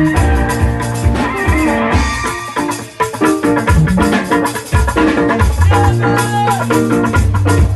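Instrumental music with plucked guitar-like notes over a drum beat, the loudness dipping briefly about three seconds in.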